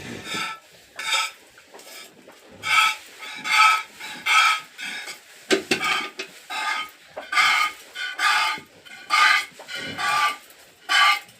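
A cow being milked by hand, its milk squirting into a metal pail in rhythmic squirts about once a second, each short hiss ringing in the pail.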